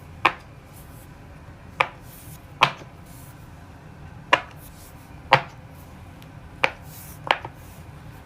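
Silicone bubbles of a pop-it fidget toy being pressed one at a time, a sharp pop about seven times at uneven intervals as players take turns.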